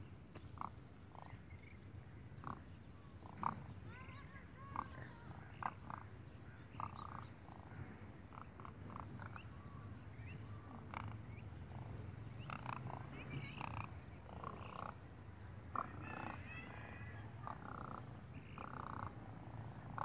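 Demoiselle cranes calling: an irregular string of short, fairly quiet calls, some single and some in brief runs, coming throughout.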